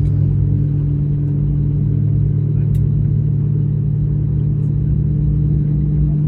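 Steady low drone of an Airbus A320neo heard from inside the passenger cabin: engine and airframe noise with a steady low hum, unchanging in level.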